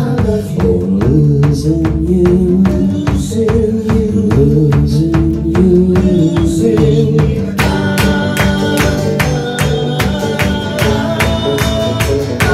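Live band playing a song: strummed acoustic guitar, electric bass and drums keeping a steady beat. A little past halfway through, a higher sustained line joins the mix.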